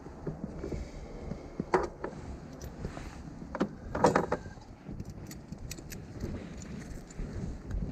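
Metal clinking and rattling, with a sharp clink about two seconds in and a longer cluster of clinks about four seconds in, over a low steady rumble.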